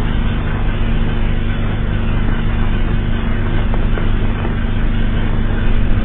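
Loud, steady low droning rumble under a dense rough hiss, the noise bed of a mock emergency-alert soundtrack.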